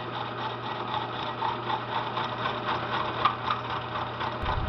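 Milling machine spindle turning a hole saw that is taking a light 10 to 15 thou skim off the notched end of a chromoly tube. A steady motor hum runs under a fast, rhythmic chatter from the saw's teeth.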